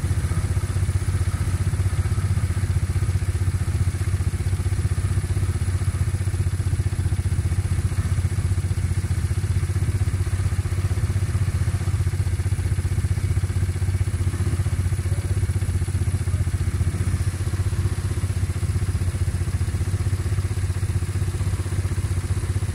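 ATV (quad bike) engine idling steadily, a constant low throb.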